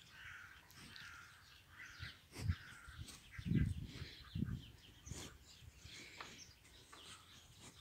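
Faint chirping of birds, with a few soft low thuds and rustles near the middle.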